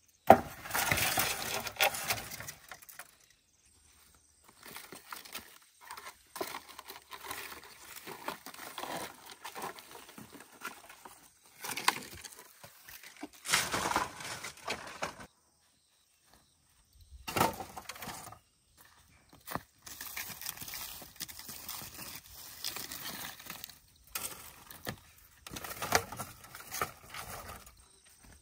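Logs and bamboo poles being handled: a log scraping and rustling as it is dragged through dry leaf litter, and poles clattering and knocking together, in irregular bursts with several sharp knocks.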